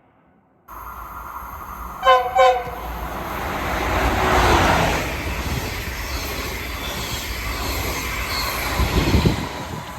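Train horn sounding two short blasts in quick succession, followed by the noise of the train passing close by, which swells and then fades back.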